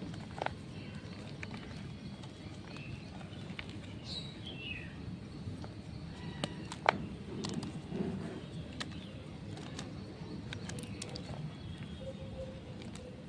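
Steady low background hum with a bird's falling chirp about four seconds in and a few sharp clicks, the loudest about seven seconds in.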